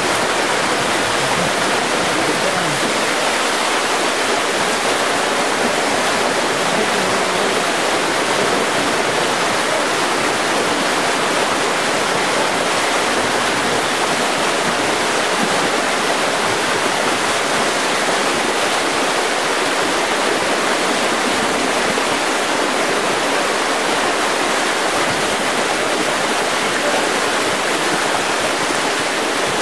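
Floodwater rushing steadily through a breach in a noncohesive earthen dam as the overtopping lake drains, a continuous loud roar of moving water with no breaks.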